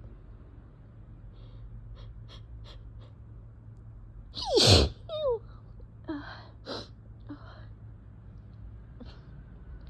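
A person sneezing once, loudly, about halfway through, the voice falling in pitch, with a shorter voiced sound right after. Quick sniffs come before it and sharp breaths after: allergic sneezing from a cat allergy.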